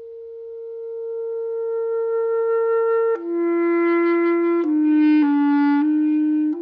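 A held electronic tone swells in loudness, then drops in pitch about three seconds in and takes on a fuller, reedier timbre. It steps down twice more and climbs back up near the end.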